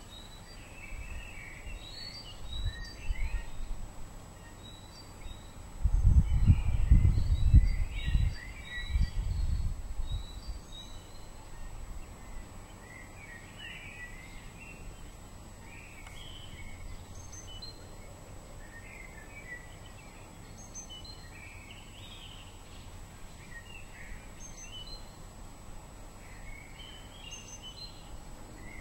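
Small birds chirping and singing in short phrases, with an irregular low rumble that swells for a few seconds about six seconds in and is the loudest sound.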